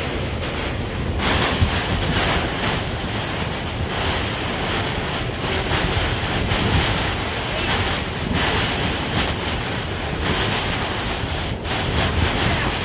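Heavy rain and wind of a severe thunderstorm beating on a sailboat's cabin top and windows: a steady noise that surges and eases every second or two.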